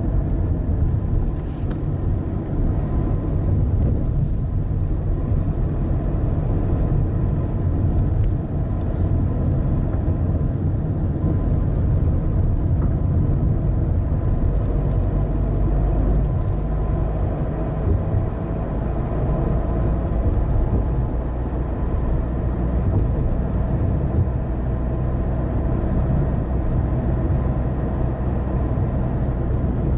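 Inside a moving car: a steady low rumble of engine and road noise.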